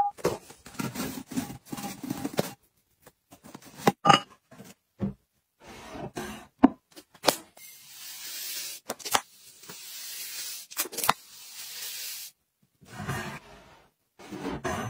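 Powdered laundry detergent poured from a tub into a glass jar: a steady hiss lasting about four seconds, around the middle. Before and after it come short rustles, clinks and knocks of containers being handled.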